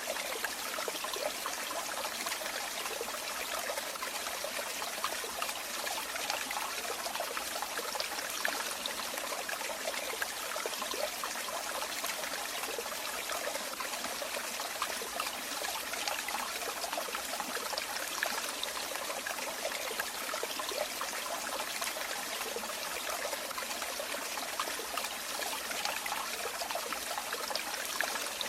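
Running water trickling and splashing steadily, a continuous bright patter with no pauses.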